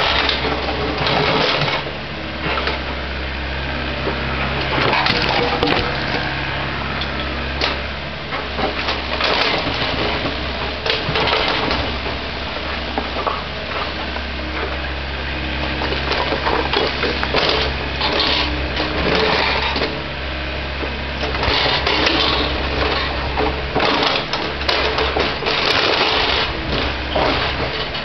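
Volvo ECR88 compact excavator's diesel engine running steadily under load. Over it come repeated knocks, scrapes and crunches as the bucket handles broken concrete slabs and brick rubble.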